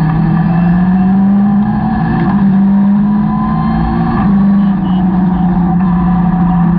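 Caterham 620R's supercharged four-cylinder engine running hard at a high, fairly steady pitch that rises a little over the first two seconds and then holds with small dips, heard from its open cockpit with wind rush underneath.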